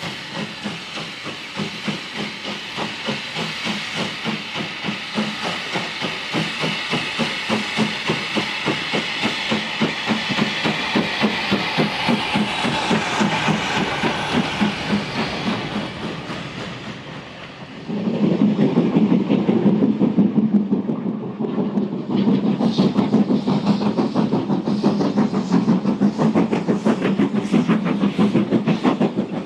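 Steam locomotive running: a fast, even beat over a hiss of steam, growing louder. A little past halfway the sound turns abruptly louder and deeper, with the rhythmic pulsing kept up.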